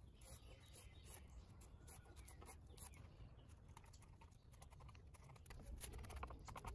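Knife blade drawn down a freshly cut green wooden pole, peeling off the bark. The scraping and peeling strokes are faint, and they come thicker and a little louder near the end.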